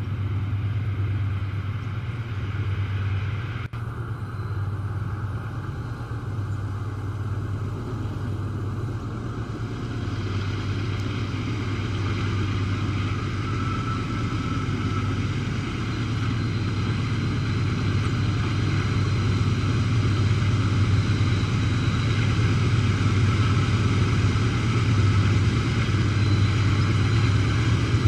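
Diesel-electric locomotives of a loaded iron-ore train, a pair of GE AC44i units leading, approaching with a steady low engine drone that grows gradually louder as they near.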